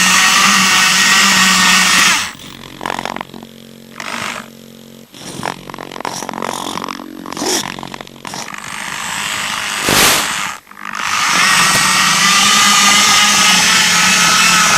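Small RC rover's electric drive motors whining as it drives over rough ground, loud and dense. About two seconds in it drops to short stop-start motor spurts, with a sharp crack near the ten-second mark, then it runs at full drive again.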